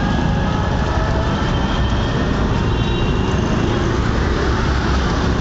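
Street traffic: a steady rumble of vehicle engines and road noise.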